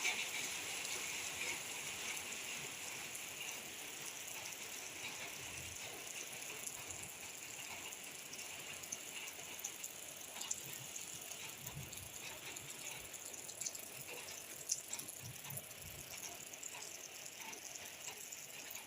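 Steady rain falling, a soft hiss with scattered drips and ticks.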